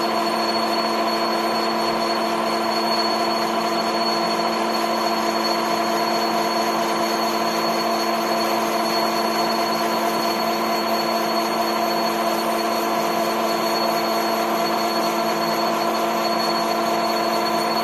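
TV-4 lathe running steadily: an even machine hum with a thin high whine above it, unchanged throughout.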